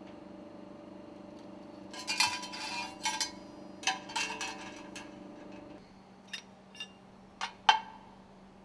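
Metal sealing and scraper ring segments of a piston-rod stuffing box clinking and clattering against each other and the work table as they are taken apart and stacked, then a few single clinks near the end. A steady low hum runs underneath and stops a little past halfway.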